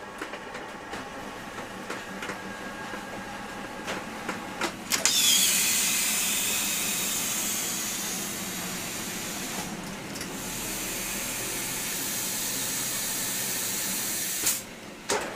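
Small extrusion blow-moulding machine for vinegar bottles: a few knocks over its running noise, then about five seconds in a loud, steady hiss of compressed air begins. The hiss holds for some nine seconds and cuts off suddenly near the end.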